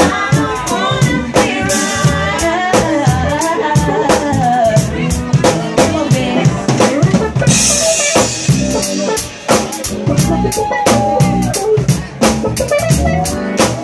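Live band playing an R&B/soul groove: busy drum kit and stick-played timbales and congas over bass guitar, with a bending melody line on top. The music thins out briefly about nine and a half seconds in and again near the end.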